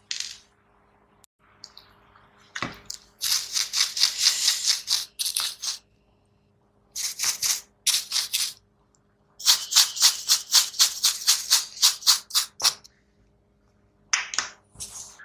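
A brush scrubbing a power supply circuit board wet with thinner: quick scratchy strokes, about four a second, in four runs with short pauses between.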